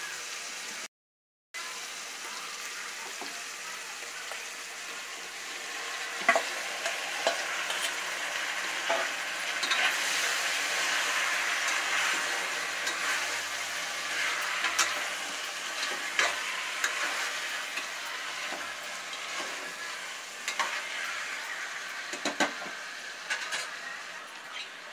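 Marinated chicken sizzling in hot oil with fried onions in an aluminium pressure cooker as it is stirred, with a steady frying hiss and occasional clicks and scrapes against the pot. The sound cuts out briefly about a second in.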